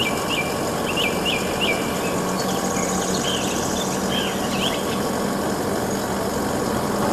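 Isuzu aerial work platform truck's engine running steadily with a low hum while its hydraulic boom raises the work platform. Small birds chirp over it through the first two-thirds.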